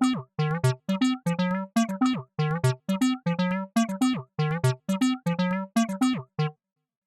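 Browser-based TB-303 bass synthesizer emulation playing a sequenced line of short notes, about three a second, some sliding in pitch. It stops suddenly about six and a half seconds in.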